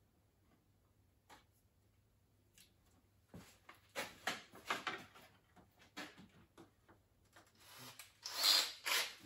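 Scattered light clicks and scratchy rubbing from hand work on parts, with a louder scrape near the end; no drill or motor is running.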